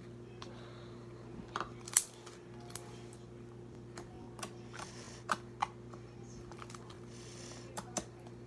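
Homemade slime being squeezed and pressed by hand, giving irregular sticky clicks and pops, the loudest about two seconds in.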